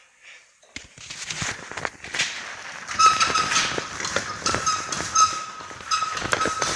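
Riga-13 moped motor giving a high-pitched squeak that pulses about twice a second, starting about three seconds in, over irregular mechanical clattering. The cause of the squeak is unknown to the owner.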